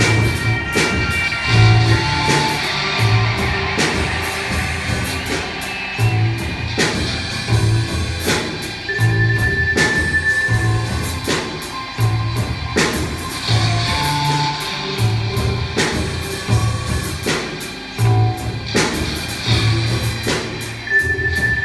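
Instrumental rock-style music played by a robot band of machines: a pulsing bass line, regular drum hits and held guitar-like tones.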